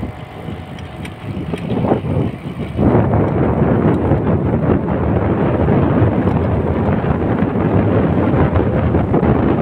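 Wind rushing over the microphone while riding, a steady rumbling noise that grows louder about three seconds in.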